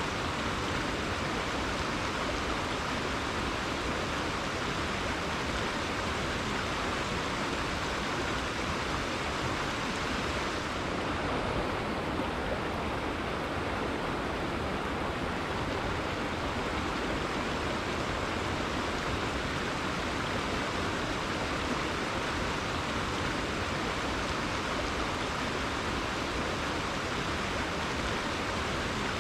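River water flowing and rushing steadily, a continuous even wash of sound.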